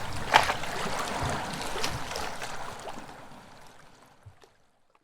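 Seawater lapping and splashing against coastal rocks, with many small sharp splashes. The loudest comes about a third of a second in, and the sound fades out to silence over the last two seconds.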